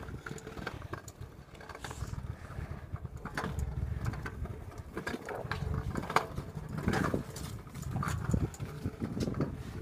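Phone microphone rubbing and knocking against clothing: a low rumble broken by irregular knocks and rustles.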